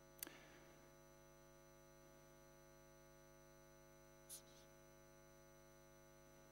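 Near silence with a steady, faint electrical mains hum. A faint click comes about a quarter second in, and a brief faint hiss a little after four seconds.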